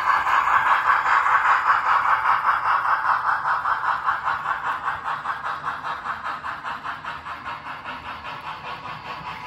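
HO scale model freight train rolling along the track: a steady, rhythmic clatter of small metal wheels on the rails, loud at first and fading as the train moves away.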